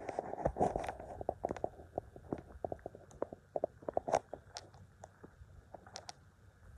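Footsteps crunching and scuffing on dry gravel and dirt. The crunches come thick and irregular for the first couple of seconds, then thin out to scattered clicks.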